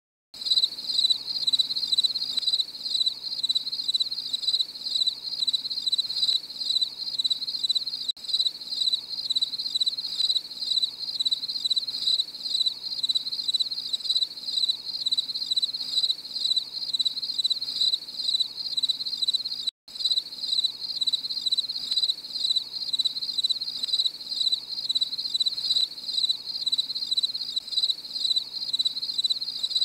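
Crickets chirping steadily in a rapid, pulsing trill, with a brief break about two-thirds of the way through.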